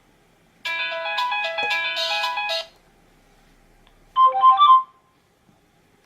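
Nokia N95 built-in ringtones: a synthesized melody of chords and shifting notes plays for about two seconds and stops, then about four seconds in a short phrase of a few quick, higher notes sounds for under a second.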